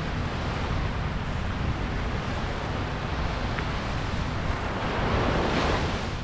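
Ocean surf washing onto the beach, with wind buffeting the microphone as a low rumble. The wash swells louder about five seconds in, then falls back.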